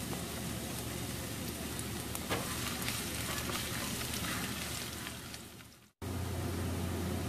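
Diced red onion sizzling in hot oil in a frying pan while a spatula stirs it, with a sharp knock about two seconds in. The sound fades out to a moment of silence near the end, then the sizzling comes back with a low steady hum under it.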